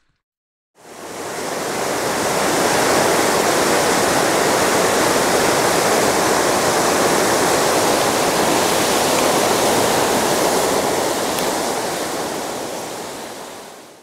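Waterfall's rushing water, a loud, steady noise that fades in about a second in and eases down near the end before cutting off.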